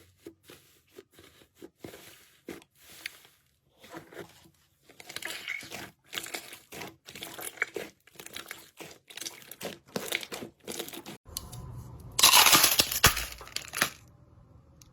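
Crunchy slime being squeezed and stretched, giving a string of short crackling pops and tearing sounds that grow denser partway through, with the loudest stretch of continuous crackling near the end.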